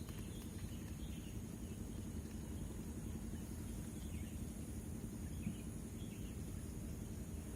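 Outdoor ambience: a steady high insect drone with scattered faint bird chirps over a steady low noise.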